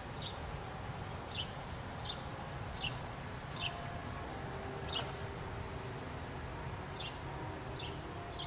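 Outdoor background: a steady low rumble of wind and distant noise, with short, high, falling chirps repeating about once a second.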